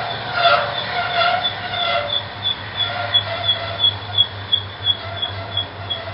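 Loaded autorack freight cars rolling past, their running gear giving a high-pitched squeak that repeats evenly nearly three times a second, over lower squealing tones and a low rumble.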